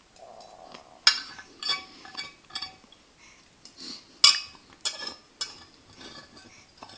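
Cutlery clinking against a dish: a series of sharp clinks with a brief high ring, about half a dozen louder ones spread irregularly over the seconds, with softer taps between.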